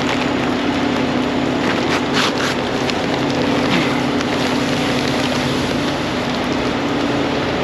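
Steady drone of an engine running the tanker trailer's hydraulic offload pump, with a constant low hum throughout. A few brief faint hisses come about two seconds in.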